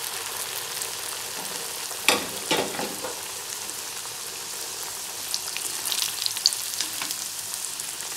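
Hot oil sizzling steadily around a stuffed pastry deep-frying in an iron kadai, with scattered small pops. Two brief louder clatters come about two seconds in.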